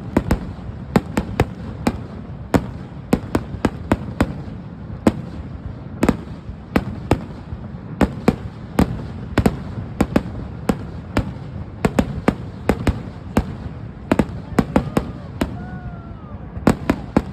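Fireworks display: a rapid, irregular series of sharp bangs and cracks, several a second, over a continuous low rumble.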